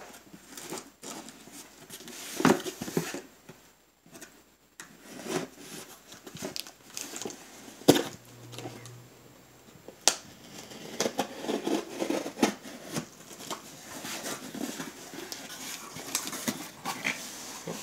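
Knife cutting the packing tape on a cardboard shipping box, then tape tearing and the flaps being pulled open and handled. The box rustles and scrapes throughout, with a few sharp clicks and knocks.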